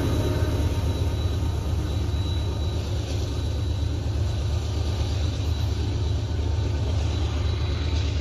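A train rolling past, a steady low rumble of wheels and engine.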